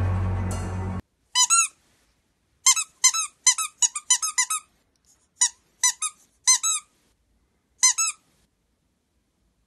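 Music cuts off about a second in; then a rubber squeaky toy ball is squeezed by hand, giving short high squeaks in quick bunches, about a dozen and a half in all.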